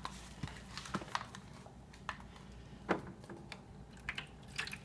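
Scattered light clicks and taps of plastic dolls and toy pieces being handled, with one stronger knock about three seconds in. Near the end comes a short patter of water poured from a cup into a plastic toy pool.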